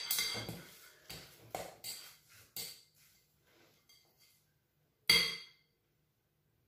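Metal spoon clinking and scraping against a glass mixing bowl while stirring lumpia filling: a string of ringing clinks over the first three seconds, then one louder clink about five seconds in.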